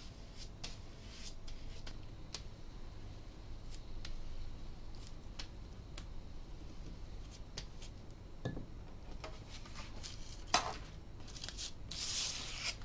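Brush working glue along a paper strip: light scattered ticks and soft brushing. A sharp click comes about ten and a half seconds in, and paper rustles near the end.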